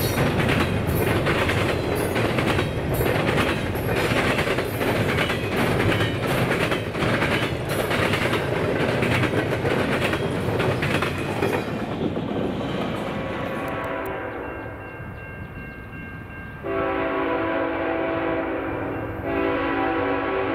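A train passes with a steady rumble and rhythmic clicking of its wheels over rail joints, then fades away. A locomotive's multi-chime air horn then sounds, faint at first and then loud in two blasts near the end.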